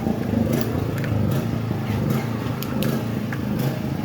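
Portable generator's small engine running steadily, with a few sharp clicks and knocks on top.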